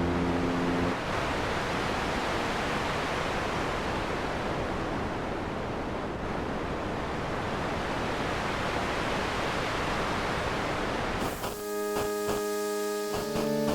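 A steady, even rushing noise with no pitch or rhythm. Music (sustained and plucked or keyboard notes) takes over about eleven seconds in.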